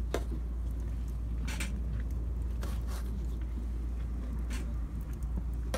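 Broad bean pods being picked up from a wooden table and laid on a metal grill rack: about four short knocks and rustles of handling over a steady low rumble.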